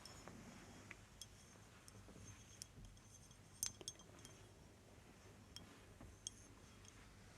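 Light ASMR tapping on a hard object: about eight soft, scattered taps and clicks, each with a faint short ring, the loudest a little past halfway, against near silence.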